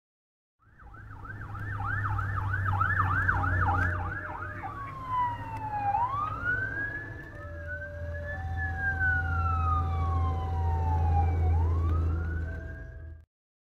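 A fire water tender's siren on a call, first a fast yelp for a few seconds and then a slow rising and falling wail, over the steady low hum of the big truck's engine.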